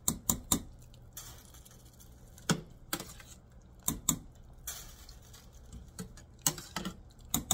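A metal mesh skimmer clinks and scrapes against a metal pot as cooked nokedli dumplings are lifted out of their cooking water. The knocks come in small clusters of two or three, with water dripping and splashing from the skimmer in between.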